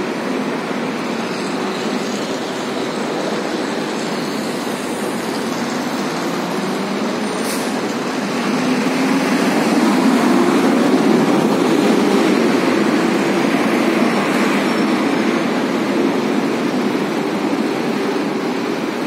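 City street traffic: cars passing steadily, growing louder in the middle as vehicles go by close, then easing off.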